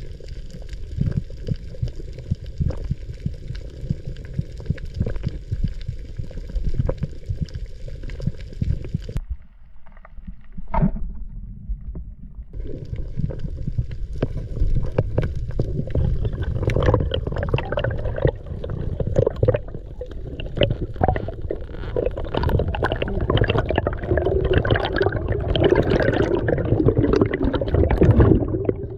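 Underwater sound picked up through an action camera's waterproof housing: low rushing water noise with a faint steady whine for the first nine seconds, cut off abruptly. It picks up again as louder bubbling and churning water with many small clicks, swelling towards the end as air bubbles rise around the diver.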